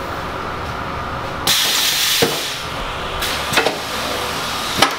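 Automatic screen-printing press cycling a print stroke: a steady machine noise, then about one and a half seconds in a loud hiss of air from its pneumatics lasting under two seconds, with several sharp clicks and knocks from the print carriage.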